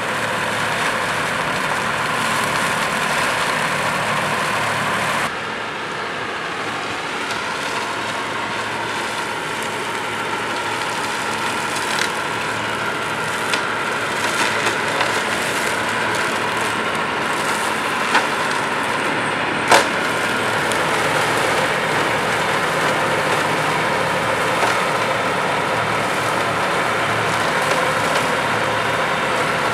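Tractor-mounted RASCO MAXIMA crane mower running, its HYDRA mowing head cutting grass and weeds on a bank over the steady drone of the Claas Arion 620 tractor's engine. The sound changes abruptly and drops a little about five seconds in. A few short sharp clicks come in the second half, the loudest about two-thirds of the way through.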